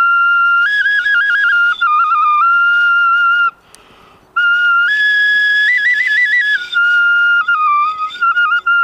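Mute-swan wing-bone flute being played: a high, shrill tune of held notes broken by quick trills, in two phrases with a breath between them about three and a half seconds in.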